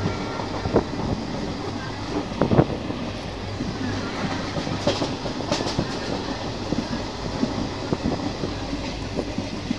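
Running noise of a passenger train heard from inside a carriage at the window: a steady rumble of wheels on rails with a few sharp clacks from rail joints, the loudest about two and a half seconds in.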